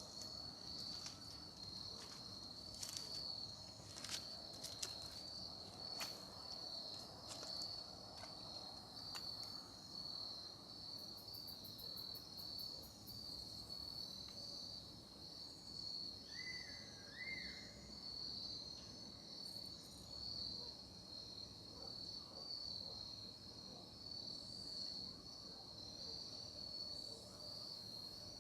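A chorus of crickets trilling steadily at a high pitch, with a few faint clicks in the first ten seconds.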